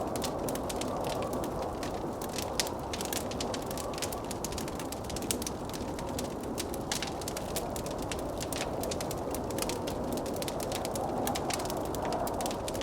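Wood fire crackling in a fireplace, with many small sharp pops, over the steady rushing of blizzard wind.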